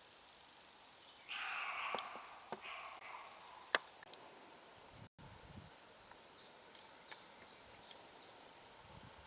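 Roe buck barking: a rough, hoarse call about a second in, then a shorter, weaker one, followed by a single sharp click. Later a small bird sings a run of about six quick, high, falling chirps.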